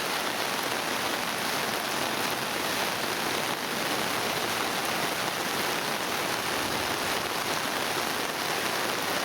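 Monsoon rain falling steadily, an even hiss of rain with no let-up.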